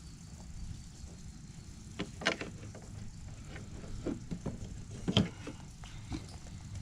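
Scattered short clicks and knocks of hand tools and parts being handled while an arm is taken off a fish finder transducer mount, the sharpest about two seconds in and again just after five seconds.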